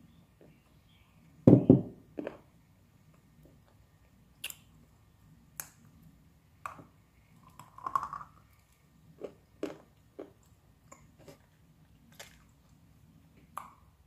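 Crunchy bites and chewing of dry, crumbly brown edible clay, close to the microphone. A loud crunch comes about a second and a half in, followed by scattered sharper crunches and clicks every second or so.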